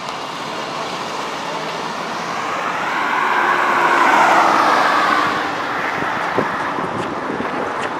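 A car passing on the street, its tyre and engine noise swelling to a peak about halfway through and then fading away, over light wind on the microphone.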